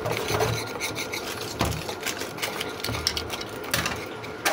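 Rough rasping and scraping, with rustling and small clicks, from hands working with the soup packets and mixing bowl.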